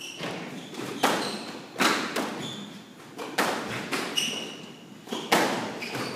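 Squash rally: sharp, echoing hits of the ball off rackets and the court walls, coming roughly once a second, with short squeaks of court shoes on the hardwood floor.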